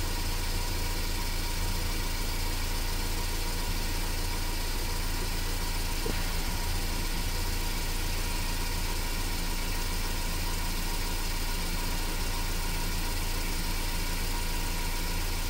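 Ford Focus engine idling steadily with an even low hum.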